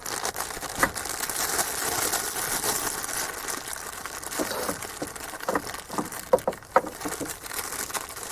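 Rustling and crinkling handling noise with a few light clicks scattered through it.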